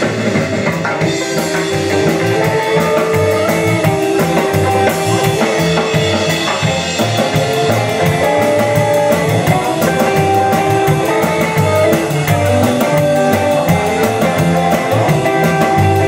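Live band playing an instrumental break without vocals: guitar playing a melodic line over a drum kit keeping a steady beat.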